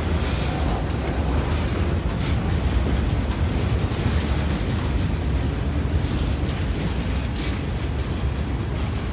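Freight train of boxcars and tank cars rolling past a grade crossing at close range: a steady, heavy low rumble of wheels on rail with occasional clacks.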